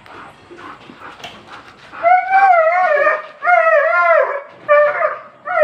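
Alaskan malamute vocalizing: two long wavering calls starting about two seconds in, then a shorter one near the end.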